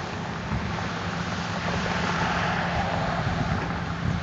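Cat 160H motor grader's six-cylinder diesel engine running steadily under load as the blade grades dirt, with wind buffeting the microphone.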